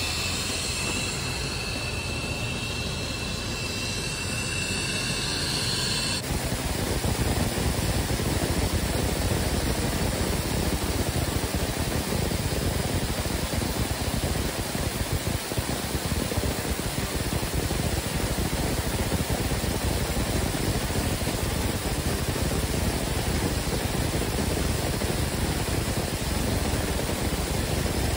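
A steady hum with a high whine, then about six seconds in, sandblasting starts suddenly: a steady hiss from the hand-held blast nozzle as it strips the old coating off the pool's surface.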